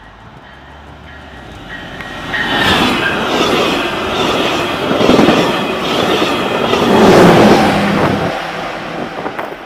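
VIA Rail passenger train passing close at speed: a rush of wheels on rail that builds, stays loud with clatter as the cars go by, and drops off about a second before the end as the train draws away.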